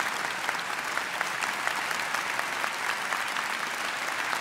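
Large audience applauding steadily: a dense, even clatter of many hands clapping.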